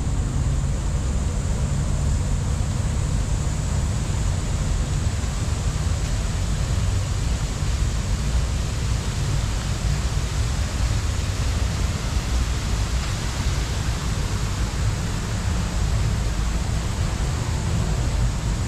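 Steady rushing noise with a heavy low rumble.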